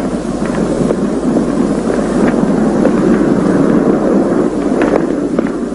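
Steady low rumble of outdoor vehicle traffic, with a few faint short clicks over it.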